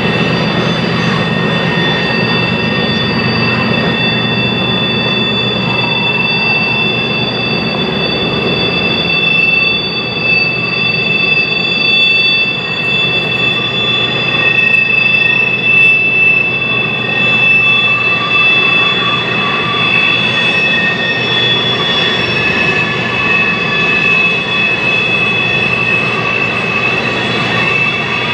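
Freight train cars rolling past, a steady rumble with a high, sustained wheel flange squeal of several steady tones, loudest around the middle.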